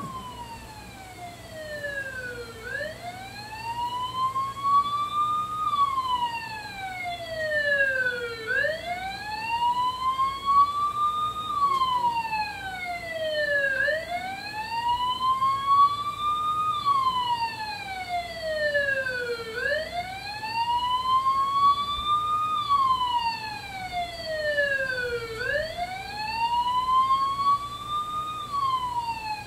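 Emergency-vehicle siren wailing, played as a show sound effect, in slow rising and falling sweeps that repeat about every five and a half seconds.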